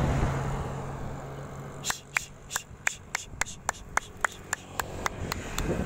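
Domestic pigeons' wings clapping as the birds fly low overhead: a quick series of about fifteen sharp claps, roughly four a second, starting about two seconds in and stopping just before the end. A steady low hum fades away early on.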